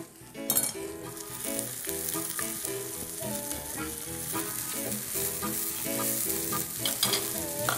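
Fried shrimp sizzling in hot oil in a frying pan, stirred and turned with a wooden spatula; the sizzle comes up about half a second in. Background music plays underneath.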